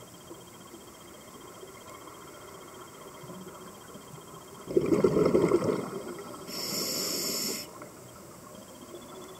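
Scuba diver breathing through a regulator underwater: a loud rush of exhaled bubbles about halfway through, then a hiss of inhalation through the regulator lasting about a second.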